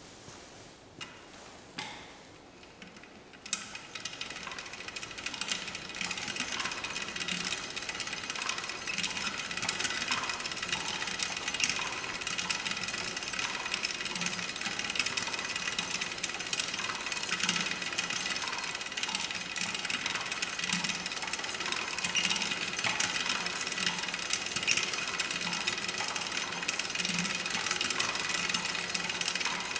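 W.F. & J. Barnes No. 4½ velocipede lathe, pedal-driven, starting up about three and a half seconds in and then running steadily: a continuous mechanical clatter from its gear train, which is set up for power feed, with a low knock recurring every second or so.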